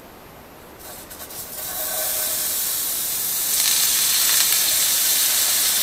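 Pats of butter dropped into an electric skillet that has got a little too hot, sizzling and spitting as they melt. The sizzle starts about a second in and gets louder twice, near two seconds and again at about three and a half seconds in.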